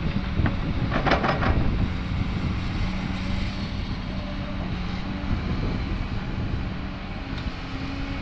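LiuGong 938E crawler excavator's diesel engine running steadily under load while it dumps soil into a dump truck and swings back to dig. A brief rattling burst about a second in as the bucket load drops into the truck bed.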